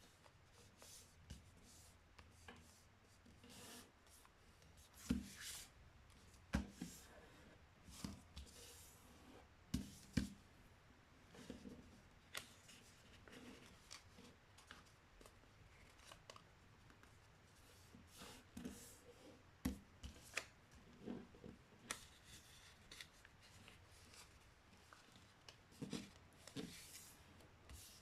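Paper being folded and creased by hand: faint, irregular rustles and crisp taps, a few sharper ones standing out.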